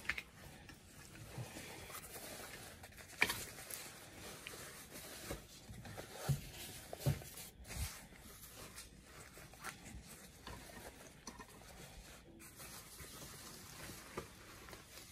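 Faint rustling of a mesh-and-textile motorcycle jacket being handled and smoothed out by hand, with a few brief louder handling noises.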